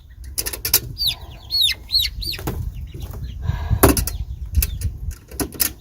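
A young chicken chick peeping in short, high chirps that rise and fall, several times in the first half. Wing flaps, rustles and knocks come from the bird being handled and set down.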